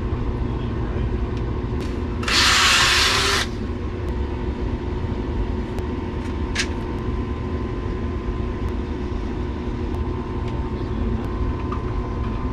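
Steady low machine hum. About two seconds in, a loud hiss lasts about a second, and a sharp click follows a few seconds later.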